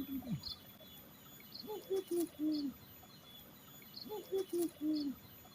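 A bird calling the same low four-note phrase twice, a couple of seconds apart, with faint short high chirps repeating throughout.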